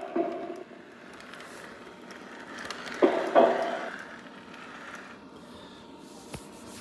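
Onboard speaker of a Lionel Vision Line ethanol tank car playing its tank-unloading sound effect: a steady hiss of draining liquid with loud double metallic clanks at the start and again about three seconds in.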